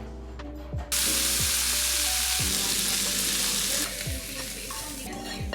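Food sizzling in hot oil in a pan: a loud sizzle starts suddenly about a second in, then settles to a quieter frying hiss after about three seconds.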